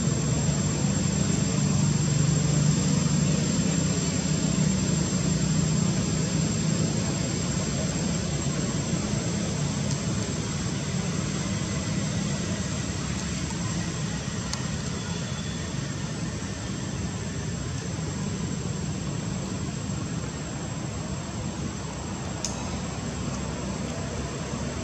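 Steady low engine rumble, like a distant aircraft or road traffic, slowly fading over the stretch.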